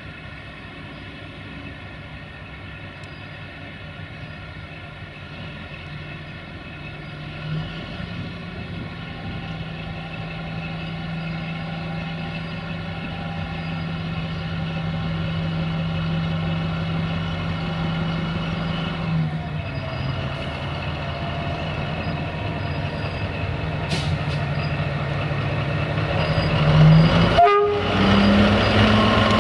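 LDH1360 diesel-hydraulic locomotive's engine running and growing louder as it comes close, its note dropping about two-thirds of the way through. Near the end there is a short, loud horn blast, followed by the engine running steadily.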